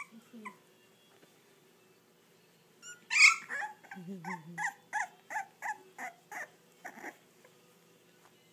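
Four-week-old English bulldog puppies whimpering and squealing. A sharp cry comes about three seconds in, then a run of short, high squeals at about three a second, each dropping in pitch, stopping about seven seconds in.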